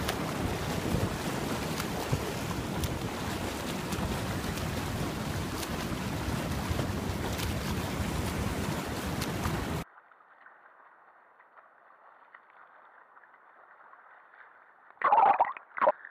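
Wind buffeting the microphone over sea water and the splashing of a swimmer's front crawl strokes. About ten seconds in it cuts abruptly to a much quieter, muffled water sound from a camera at water level, with two short louder sounds near the end.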